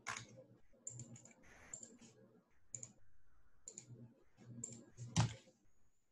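Faint, scattered clicks of a computer mouse and keyboard, about a dozen sharp ticks at an uneven pace, the loudest about five seconds in.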